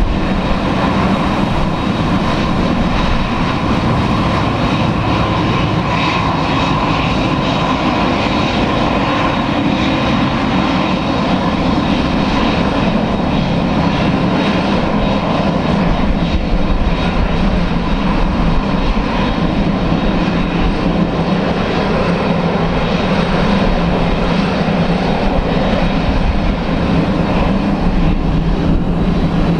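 Boeing 767-300's General Electric turbofan engines running at low taxi thrust as the airliner rolls slowly past: a loud, steady jet whine over a low rumble.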